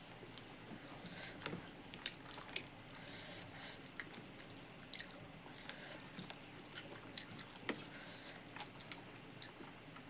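A person chewing pork and rice close to the microphone: faint wet mouth clicks and smacks at irregular intervals.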